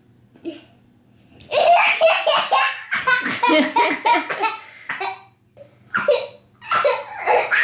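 A child laughing hard in rapid pulses, in two long fits: one starting about a second and a half in, and another near the end.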